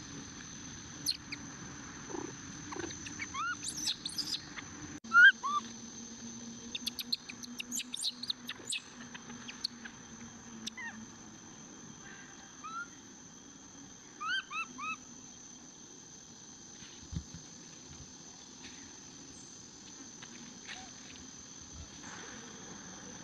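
Baby macaque giving short, high, arched squeaks in scattered clusters, the loudest about five seconds in and a quick run of three or four around fourteen seconds in. A few light clicks fall between them, over a steady high-pitched whine in the background.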